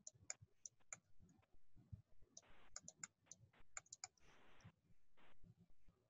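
Faint, irregular clicks and taps with two short scratchy strokes, from a stylus writing on a tablet screen.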